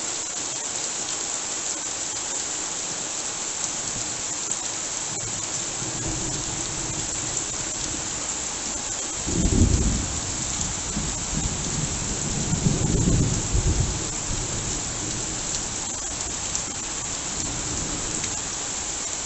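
Heavy rain falling steadily on leaves and grass, with thunder rumbling low. The thunder swells about a third of the way in and peaks twice near the middle.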